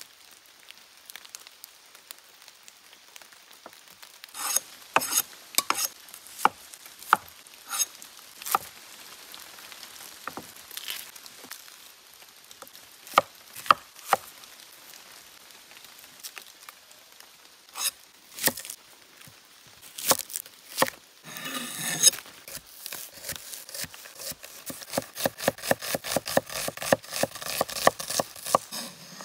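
A cleaver-style kitchen knife cutting onions on a wooden board: scattered single cuts and knocks as the onions are peeled and halved, a brief rustle of onion skin, then a fast, even run of chopping strokes in the last few seconds as an onion is diced.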